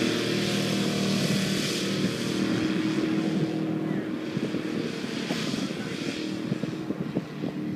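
F35 hovercraft's engine and fan running steadily at a constant pitch, growing fainter as the craft travels away across the grass.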